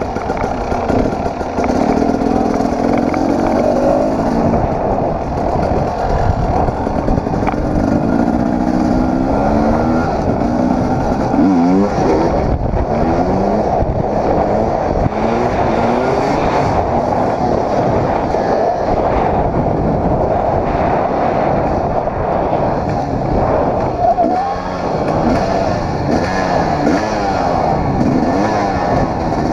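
Dirt bike engine running under way, its pitch rising and falling again and again as the rider works the throttle and gears.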